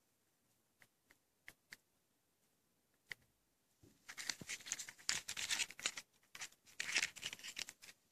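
Fingers handling and turning a small cardboard box: a few light clicks, then about four seconds of scratchy rustling and scraping of fingertips against the cardboard.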